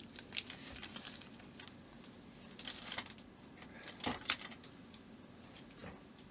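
Light, irregular clicks and taps of small screws and model parts being handled, with a couple of sharper knocks about three and four seconds in.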